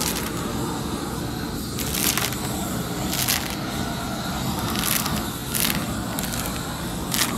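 Short gritty crunches, about six of them at uneven intervals of a second or two, like footsteps on gritty concrete, over a steady low background rumble.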